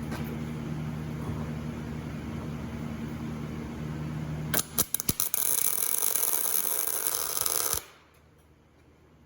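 Welding arc laying a tack weld on steel angle iron: a few short crackling strikes about four and a half seconds in, then a steady hissing crackle for about two and a half seconds that cuts off suddenly. Before it, a steady low hum.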